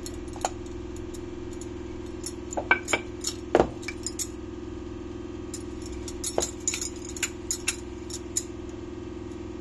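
Scattered light clinks and taps as bajra dough is pressed in flour and rolled out with a wooden rolling pin on a marble rolling board, the wrist bangles clinking as the hands work. A steady low hum runs underneath.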